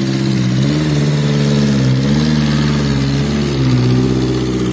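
Diesel engine of a fully loaded Toyota Dyna dump truck working under load across rough ground, its pitch rising and falling several times as the throttle is worked.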